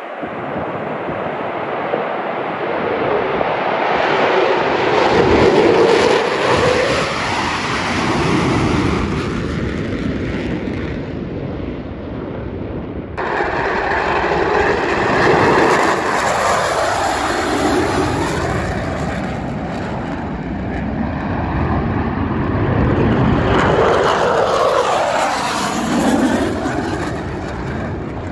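Blue Angels F/A-18 Super Hornet jets at full power as four of them take off in formation and climb away, their jet noise sweeping up and down in pitch as they pass. About halfway through the sound changes abruptly to a second low pass of the formation, followed by a single jet going overhead.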